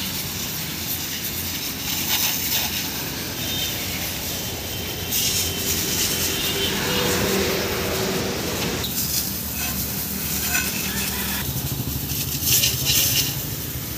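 High-pressure washer running, its water jet hissing against the tractor's engine parts and front wheel over a steady low hum. The hiss grows louder for a few seconds about five seconds in, and again briefly near the end.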